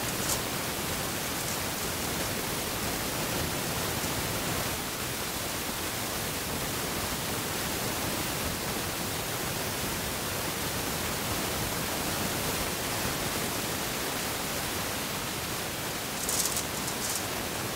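Steady, even hiss of background noise, with a few short crisp clicks of eating mouth sounds just after the start and again near the end.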